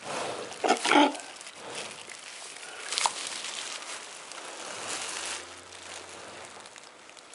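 Breathing and grunting from cattle just after a calving, from the heifer and her newborn calf, loudest about a second in, mixed with rustling of a plastic obstetric sleeve.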